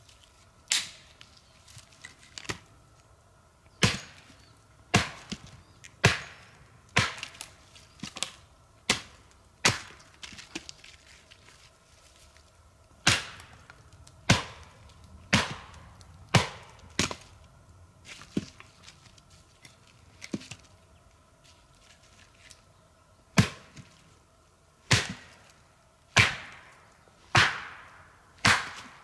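Small axe chopping wood: a run of sharp strikes about one a second, with a pause of a few seconds past the middle before the chopping starts again.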